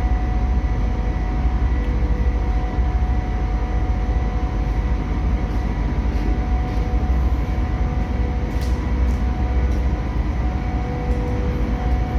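Large diesel generator set running steadily: a deep, even drone with a constant whine held on top, unchanging throughout.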